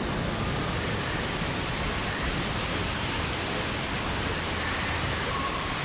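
A steady, even rushing noise, with a faint high tone near the end.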